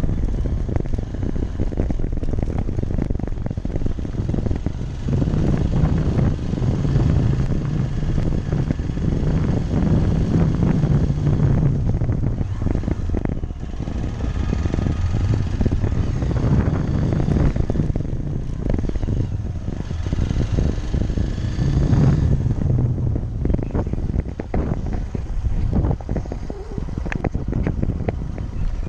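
Motorcycle riding along: wind buffets the mounted camera's microphone over the engine's low running note, which grows stronger in stretches and eases off in between.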